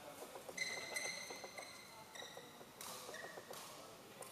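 Court shoes squeaking on the badminton court floor three times, each squeak high and steady in pitch, the first about half a second long. Faint footsteps and hall hum sit underneath.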